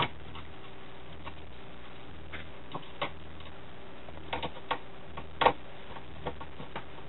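Irregular light clicks and taps of a screwdriver and fingers working among the wiring and circuit boards inside an old stereo's metal chassis, with a sharper click about five and a half seconds in, over a faint low hum.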